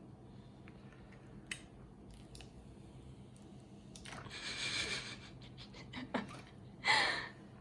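Quiet handling of an iPhone box and its packaging: a few light clicks, then a rustling scrape about four seconds in, and a short sound falling in pitch near the end.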